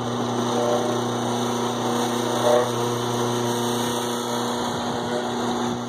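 Electric boat lift motor running with a steady hum as it slowly lowers the boat.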